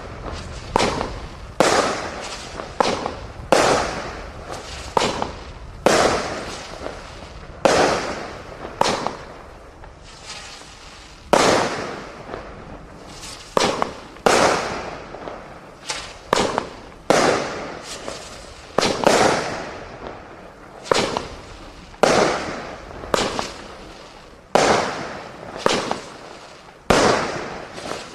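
Fireworks from a consumer display pack firing a rapid run of sharp bangs, about one a second, each trailing off in an echo. There is a brief lull about ten seconds in.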